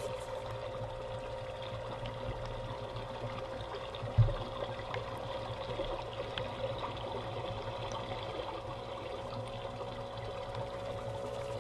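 A small electric pump motor running with a steady hum, very loud against water trickling and pouring as artificial rain. A single dull thump about four seconds in.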